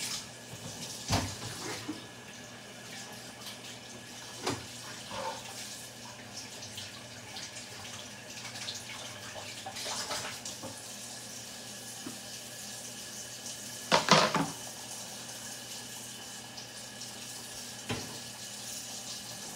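Kitchen tap running into a stainless steel sink as food is rinsed under it, a steady splashing, with a few sharp knocks and clatters, the loudest about fourteen seconds in.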